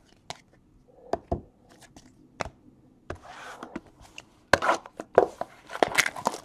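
A shrink-wrapped Topps Gold Label card box and cards being handled on a tabletop. There are scattered taps and clicks at first, then from a little past halfway denser, louder crinkling and crackling of the cellophane wrap as it is worked at.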